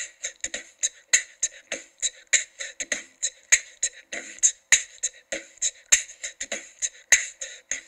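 Beatboxing played by the Google Assistant through the AIY Voice Kit's small speaker: a steady rhythm of short vocal drum hits, the strongest a little over a second apart with lighter ones between.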